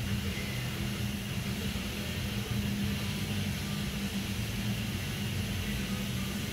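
Steady low mechanical drone of shop machinery over a hiss, without pauses or knocks.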